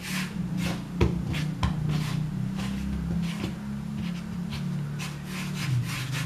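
A hand rolling a small piece of bread dough back and forth on a floured wooden board: quick repeated soft brushing strokes, about three a second. A steady low hum runs beneath.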